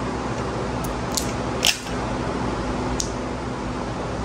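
A few small sharp clicks and ticks from a tube of adhesive being handled and squeezed onto a metal mounting plate, the loudest about one and a half seconds in, over a steady background hum.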